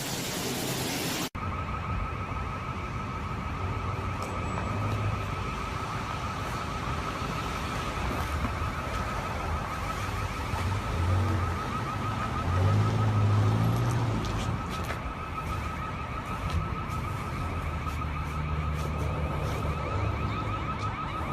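Outdoor tsunami warning siren sounding a steady, wavering tone, starting about a second in, over low rumbling background noise.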